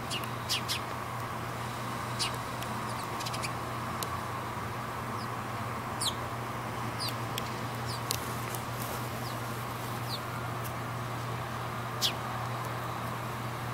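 Small birds chirping now and then: scattered short, high, downward-sliding chirps over a steady low hum.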